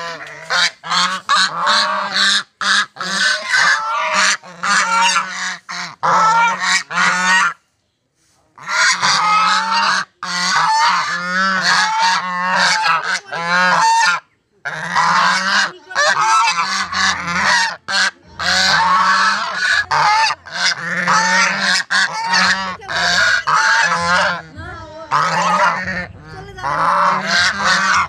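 A flock of domestic geese honking loudly, several calling over one another almost without pause. There are two brief breaks, about a third of the way in and again about halfway through.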